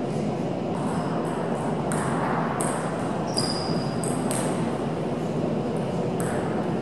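Table tennis balls clicking off bats and tables at irregular intervals, from several games going on at once, over the steady murmur of a large hall. A brief high squeak sounds about three and a half seconds in.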